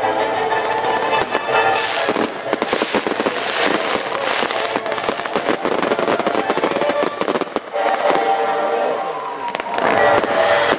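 A fireworks display with show music. About two seconds in, a fast barrage of firework bangs and crackles takes over for several seconds, then thins out as the music comes back near the end.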